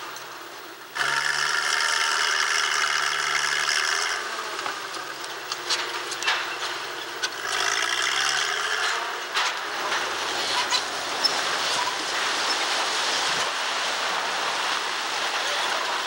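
Crane engine running under load and revving up as the crane pulls on a masonry tower, with grinding and grating of the cable against the structure. From about ten seconds in the sound turns into a rougher, noisy rush with scattered knocks, as the masonry begins to give way.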